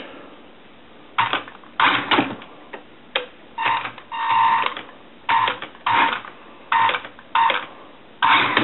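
Electric RC buggy motor and drivetrain whirring in short throttle blips, about ten bursts of under a second each. It runs without a break near the end.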